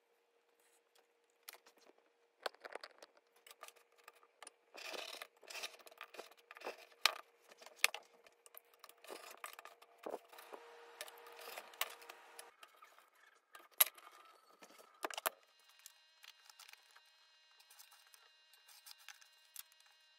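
Pieces of baseball-glove leather being handled and worked at a table: scattered sharp clicks and taps with scraping and rustling, busiest in the first two thirds and sparser near the end.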